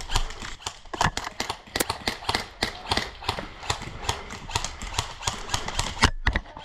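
A rapid, irregular string of sharp clacks and snaps, several a second, from airsoft guns firing and BBs striking during a firefight. The loudest single crack comes near the end, followed by a brief hush.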